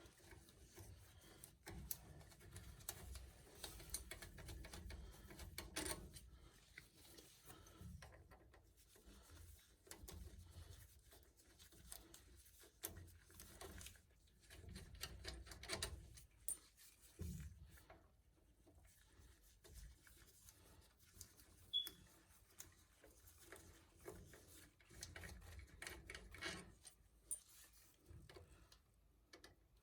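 Near silence with faint, scattered clicks and rubbing of hand tools and metal parts being handled, one sharper click about 22 seconds in.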